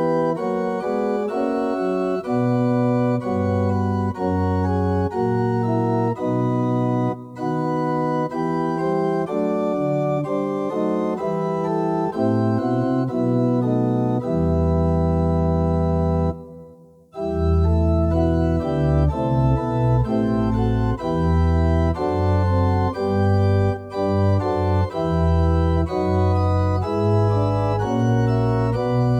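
Yamaha NP-11 portable keyboard played on one of its organ voices: held chords over a moving bass line, with a brief break a little past halfway.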